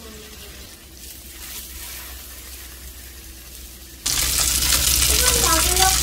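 Salmon fillet frying in oil on a cast-iron griddle pan, a soft, steady sizzle. About four seconds in, a much louder sizzling hiss cuts in suddenly.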